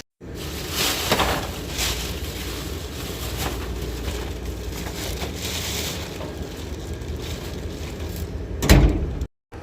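Household handling noises: rustling and crinkling of items being moved about, with a louder thump near the end, over a steady low hum.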